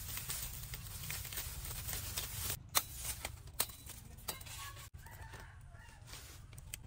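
Knife cutting and tearing through lemongrass stalks among rustling leaves, with a few sharp snaps around the middle. Chickens cluck faintly in the background in the second half.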